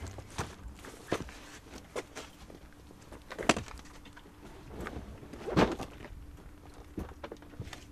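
Fishing tackle being unloaded from the back of a van and set down on a gravel track: scattered knocks and clunks of bags, boxes and cases, with two louder thumps about three and a half and five and a half seconds in.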